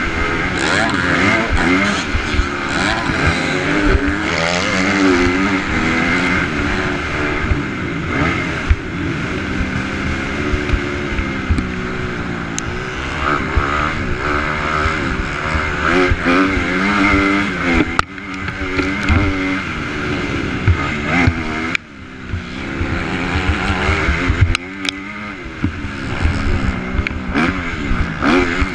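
250 cc motocross bike engine revving hard under race throttle, its pitch climbing and dropping again and again through the gears, with wind rush on the microphone. The throttle chops off sharply twice, about two-thirds of the way through.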